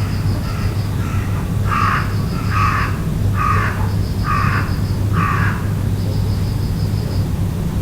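A crow cawing: a run of about eight harsh caws spaced under a second apart, the middle five loudest, over a steady low hum.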